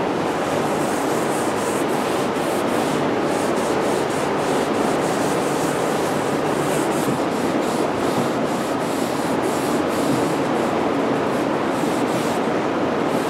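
Cloth rag rubbing wood stain into bare pine in repeated wiping strokes, over a steady rushing noise.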